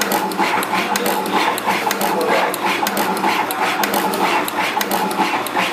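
SMT pick-and-place machine running at speed, placing SMD LEDs onto a board. It makes a fast, even run of sharp clicks, several a second, over a steady mechanical hum.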